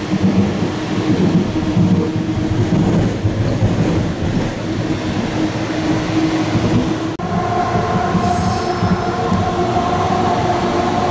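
AirTrain JFK car running along its elevated guideway, heard from inside: a steady rumble of the ride. A steady whine joins about seven seconds in, and a brief high squeal follows a second later.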